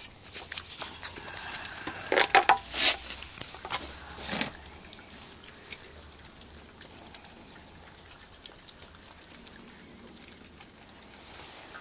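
Knocks and rustling as a food bowl is set down among Norwegian Elkhound puppies. After about four and a half seconds the noise drops, and the litter eating from the bowl gives faint small clicks and ticks.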